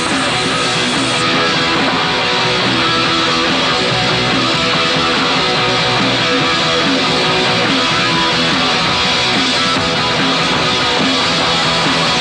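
Punk rock band playing live: distorted electric guitar, bass guitar and drums in a loud, steady, unbroken wall of sound.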